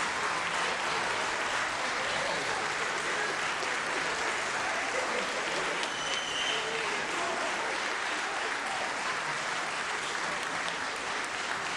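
Audience applauding steadily, with scattered voices in the crowd and a brief high cheer about six seconds in.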